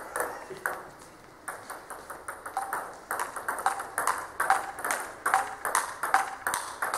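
Table tennis balls clicking on tables and bats: a quick, irregular string of sharp clicks, sparse at first and coming several a second after about a second and a half.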